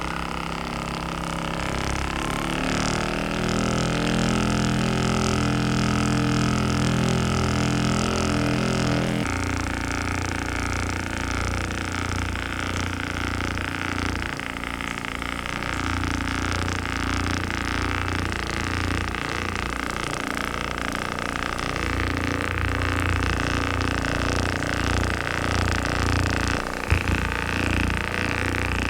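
Handheld electric massager fitted with a different head, its motor running with a steady buzzing drone. The pitch drops about 9 seconds in and shifts again a couple of times later on, and there is one brief sharp knock near the end.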